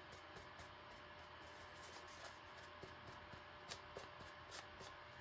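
Near silence, with faint scattered rustles and light ticks of a paper towel wiping paint off a 3D-printed plastic walkie-talkie.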